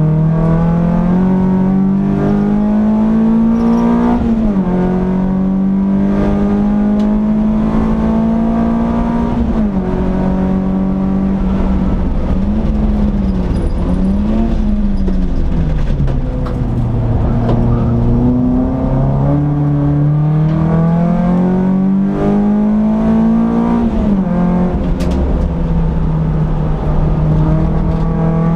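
Peugeot 206 S16's 2.0-litre 16-valve four-cylinder engine heard from inside the cabin under hard track driving: the note climbs with the revs and drops sharply at the gear changes about 4 seconds in and near the end. Around the middle it wavers up and down and falls low as the car slows for a corner, then pulls up through the revs again, over steady road and wind noise.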